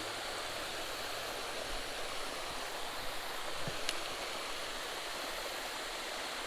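Steady rush of water pouring over a small creek spillway into the pool below, with a faint click about four seconds in.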